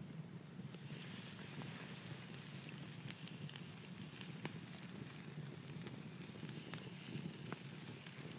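Bacon rashers sizzling on a wire grill over a wood campfire, the hiss coming up about a second in as the first rasher goes down, with scattered crackling pops from the burning wood.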